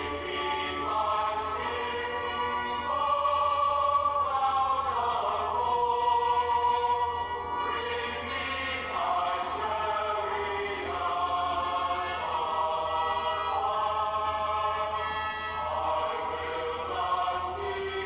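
Choral music: a choir singing slow, long-held notes that move from chord to chord.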